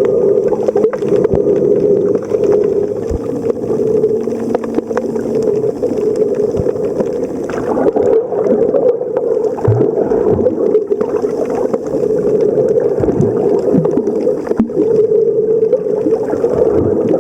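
Muffled underwater water noise recorded while snorkelling in the sea: a steady rushing hum with scattered clicks, gurgles and a few low thumps.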